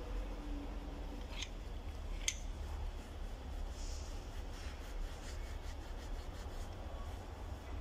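Rubbing and rustling as a throttle body is wiped with a tissue and handled in clear plastic, with two sharp clicks about one and a half and two and a quarter seconds in and a short hiss near the middle, over a steady low hum.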